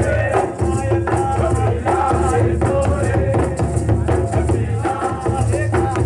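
Sidi dhamaal music: barrel drums beating a steady rhythm, with shaken rattles and singing voices over it.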